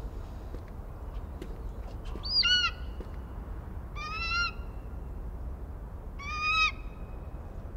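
A soaring hawk calling three times, each a short, high, clear cry of about half a second, spaced a couple of seconds apart, over a low steady rumble.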